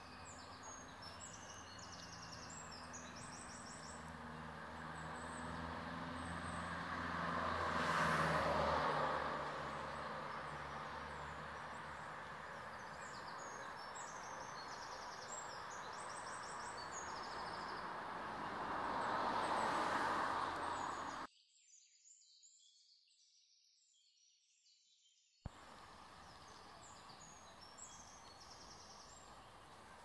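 Street traffic, with two vehicles passing in slow rising and falling swells, under small songbirds chirping in short high repeated notes. About two-thirds of the way through, the sound drops out almost entirely for about four seconds.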